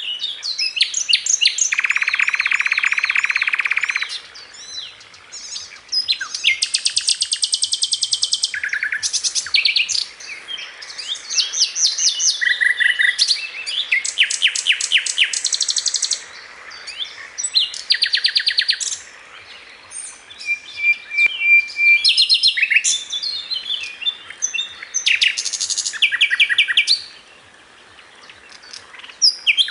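A songbird singing a long, varied song. It comes in separate phrases of fast repeated notes and trills, with short pauses between them, and includes a harsh buzzy phrase about two seconds in.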